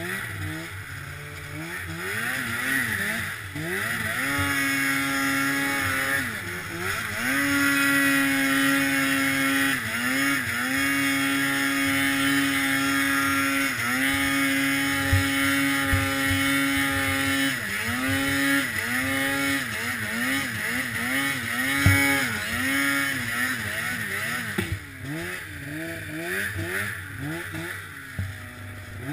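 1997 Polaris Indy RMK 700 snowmobile's two-stroke engine revving under way. The pitch climbs and holds high for several seconds at a time, drops back between stretches, and near the end rises and falls in a string of quick throttle blips.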